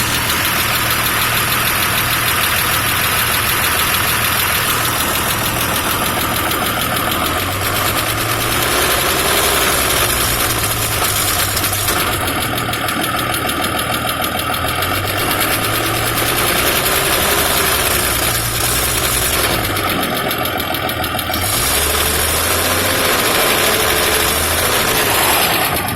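Toyota FJ60 Land Cruiser's 2F inline-six engine idling steadily under a constant hiss, swelling slightly a few times. The owner suspects the engine has a vacuum leak.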